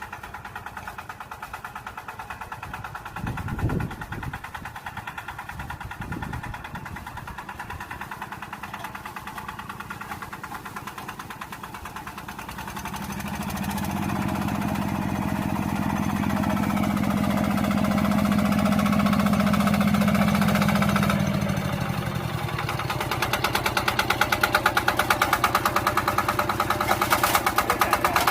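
Diamond 11 hp single-cylinder diesel engine running with rapid, even firing beats. Two short low thumps come near the start. About halfway through, the engine note grows louder and holds, then drops back, and the running gets louder again near the end.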